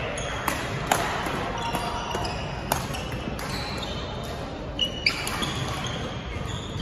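Badminton racket strikes on a shuttlecock during a rally, heard as sharp clicks, with short high squeaks of sneakers on the court floor and a steady hum of hall noise. Two more knocks come about five seconds in.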